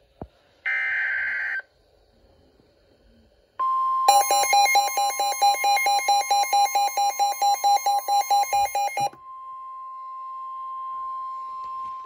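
Midland weather alert radio receiving a NOAA Weather Radio coastal flood warning: a short warbling burst of SAME data tones about a second in, then the steady 1050 Hz attention tone from near four seconds. Over the tone the radio sounds its own rapid alarm beeps, about five a second, for some five seconds; after they stop the steady tone goes on alone, quieter.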